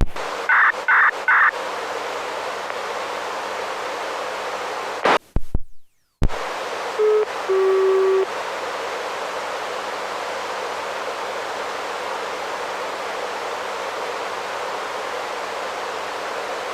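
Steady hiss of a radio receiver tuned to a municipal disaster-prevention radio channel, waiting for the broadcast. Three short high beeps about half a second in. Around the middle a click, a brief drop to dead silence and another click, then two short low tones a second or so later before the hiss settles again.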